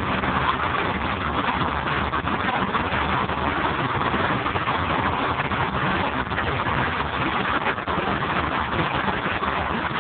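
Moving freight train heard from aboard: a steady rumble and rattle of the rolling train, wheels running on the rails.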